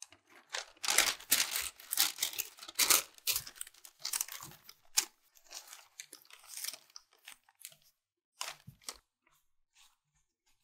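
Crisp crunching and papery crinkling as baked savoiardi (ladyfinger) biscuits are handled: dense for the first few seconds, then thinning to scattered light ticks, with two sharper knocks near the end.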